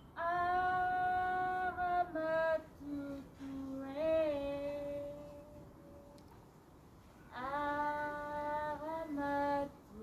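A woman singing slow, long-held notes in two phrases, with a short pause between them about six seconds in.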